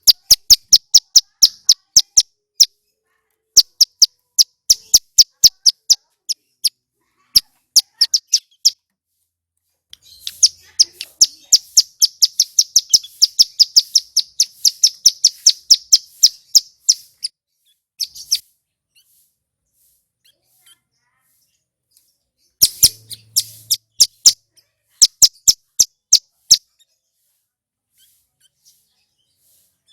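Male ciblek gunung (mountain prinia) calling: loud, sharp, high-pitched notes repeated several times a second in short runs, with one long rapid rattling run in the middle, then falling quiet for the last few seconds.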